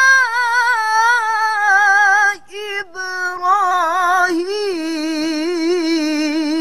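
A woman chanting the Quran in melodic recitation, holding long ornamented notes with a wavering, trilling pitch. After a short break about two and a half seconds in, the voice returns on a lower held note.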